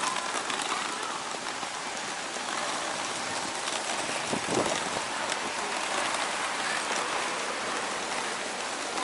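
Hard-shell suitcase wheels rolling over brick paving: a steady hiss with a fine rattle.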